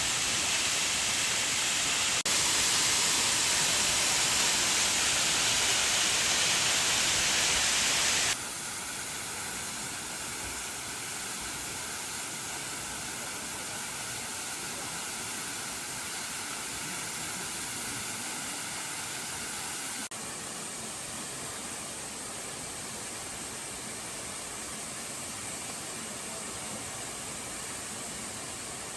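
Waterfall's falling water rushing steadily. It is loudest and brightest between about 2 and 8 seconds, and the level shifts abruptly at about 2, 8 and 20 seconds.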